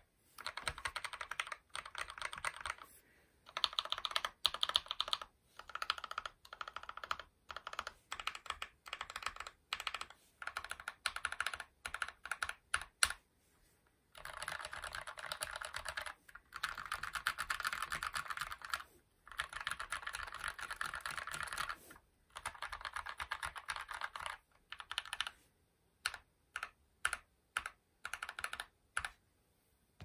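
Kemove Snowfox 61 mechanical keyboard with lubed and filmed Banana Split linear switches being typed on: fast runs of keystrokes broken by short pauses, then single separate key presses near the end.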